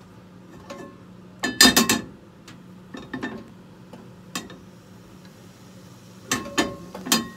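Kitchen utensils and dishes clinking and knocking in short clusters, the loudest about one and a half seconds in, over a steady low hum.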